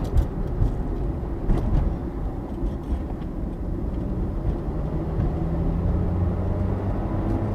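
Car being driven, heard from inside: a steady low rumble of road and wind noise, with a steady engine hum that comes up about four and a half seconds in.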